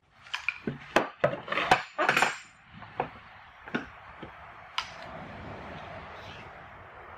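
A quick run of sharp wooden knocks and clinks as a thin wooden panel is set and clamped in a bench vise, followed by a few lighter ticks. A steady hiss comes in about two and a half seconds in.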